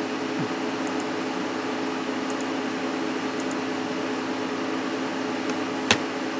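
Steady whirring hum of a desktop computer's cooling fans, with a single sharp click, like a mouse click, near the end.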